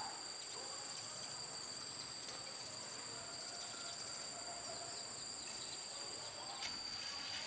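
Insects droning in a steady chorus: two continuous high-pitched tones that hold level and do not pause.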